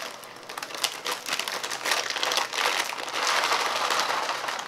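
Plastic wrapper of a Nongshim Shin Ramyun Kimchi instant-noodle packet crinkling as it is pulled open and handled to get the noodle cake out. The crinkling grows louder and denser about halfway through.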